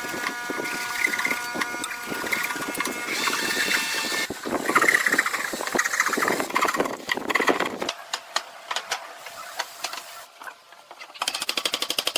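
Woodworking power tools at work. A motor's steady whine comes first, then rough, loud cutting or grinding noise from about the middle, and a fast, even clicking starts near the end.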